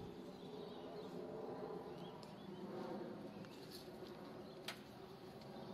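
Faint steady hum of several low tones, with a few faint bird chirps and a brief click near the end.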